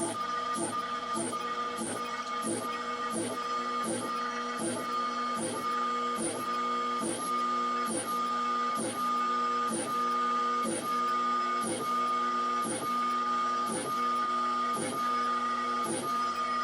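Stepper motors of a home-built CNC lathe whining steadily during a cut, with a repeating sweep about twice a second.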